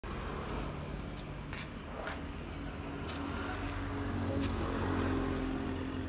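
A motor engine running steadily, its low hum rising slightly in pitch about four seconds in, with a few light clicks over it.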